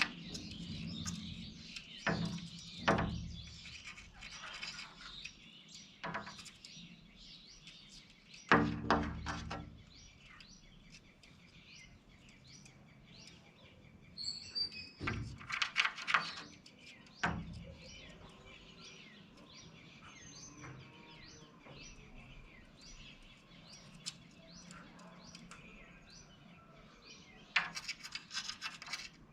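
Birds chirping, with many short high calls throughout. Louder sharp calls stand out several times, around 3 s in, about 9 s in, twice near the middle and once near the end.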